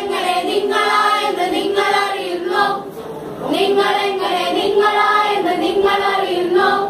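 A group of voices singing a song together in long held notes, with a short break about three seconds in.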